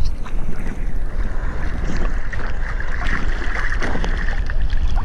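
Wind rumbling on the microphone of a camera just above the sea surface, with small waves lapping and splashing close by.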